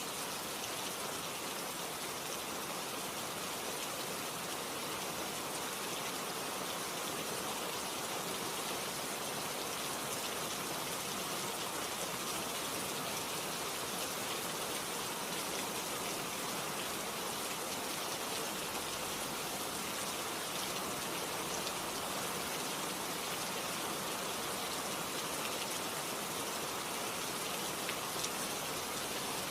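Steady rain falling on a surface, a constant even patter of drops with no let-up or change.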